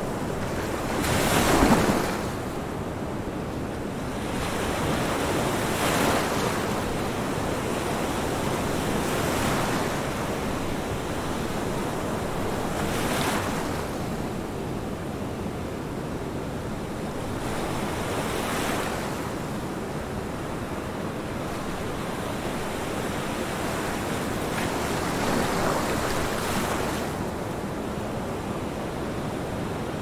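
Ocean surf: a steady rush of water with waves swelling in and washing out every four to seven seconds, the loudest about a second and a half in.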